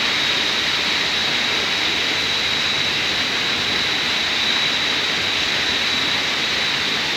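Steady rush of a waterfall, with a constant high-pitched whine on top.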